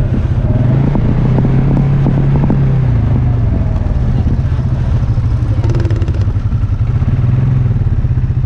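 Engine of an off-road vehicle running steadily while trail riding, with a dense, even low drone of firing pulses.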